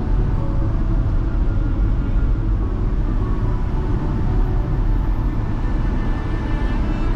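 A car driving, heard from inside through a dashcam: a steady low rumble of engine and road noise.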